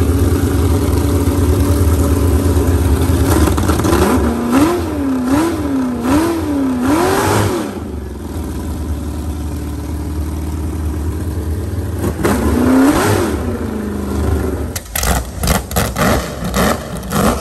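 Big-block V8 in a jet boat running through open headers: idling, then blipped up and down about four times in quick succession, and revved once more later. The sound turns choppy near the end. The revs come while the ignition timing is being set with a timing light.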